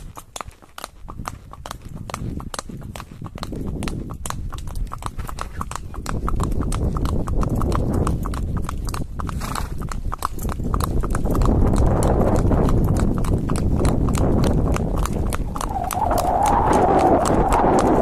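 A ridden horse's hooves clip-clopping in a quick, steady rhythm as it goes at a fast pace, with a low rumble that builds about six seconds in and grows louder toward the end.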